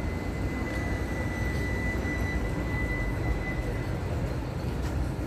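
Steady low rumble of city street background noise, with a thin high whine that fades out about four seconds in.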